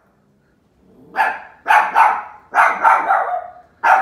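A dog barking: a run of about six quick, loud barks, starting about a second in.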